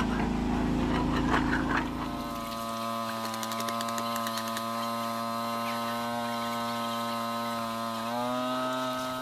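A motor running steadily. A rough, noisy rumble in the first two seconds drops away, leaving an even pitched hum that steps up slightly in pitch near the end.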